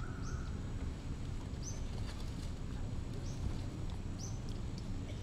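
A bird repeating a short, high call that drops in pitch, four times, over a steady low background rumble.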